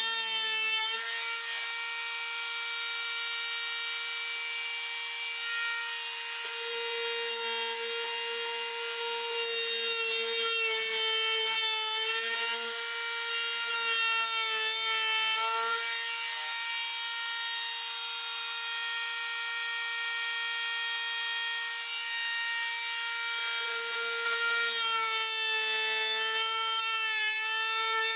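Electric power tool working wood: a steady motor whine with the scraping, rubbing sound of the wood against it, the pitch sagging slightly now and then as it takes load.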